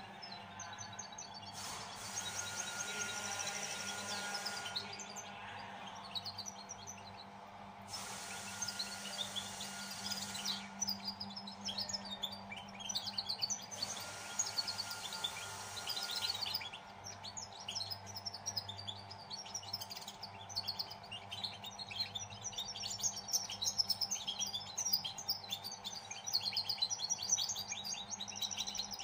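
A two-month-old novice songbird singing a rapid twittering song of quick high chirps, patchy at first and running almost without a break from about ten seconds in. It is a young bird still learning its song, schooled on a master recording and not yet fully formed.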